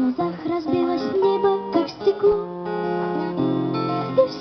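Acoustic guitar playing the accompaniment of a ballad.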